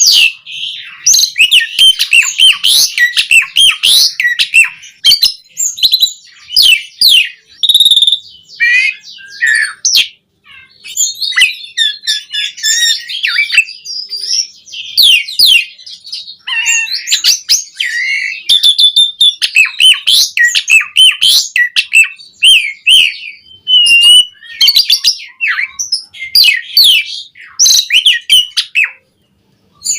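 Asian pied starling (jalak suren) in full, vigorous song: a fast, varied stream of chattering notes, whistles and quick up-and-down sweeps, packed with imitated phrases. There are short pauses about ten seconds in and near the end.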